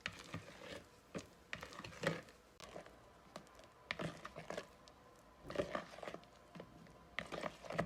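Spatula folding condensed milk into whipped heavy cream in a mixing bowl: irregular soft squishes and light scrapes and taps against the bowl.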